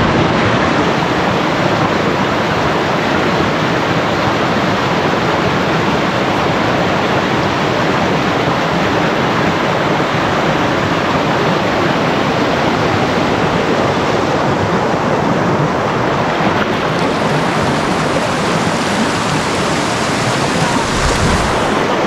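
Waterfall on a river rushing steadily: a constant loud wash of falling, churning water.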